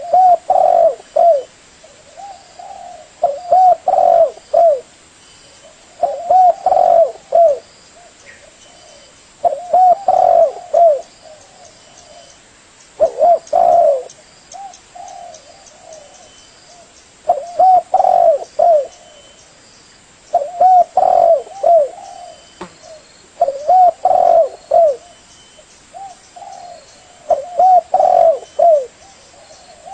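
Spotted dove (tekukur) cooing: a phrase of several short coos, repeated about every three to four seconds.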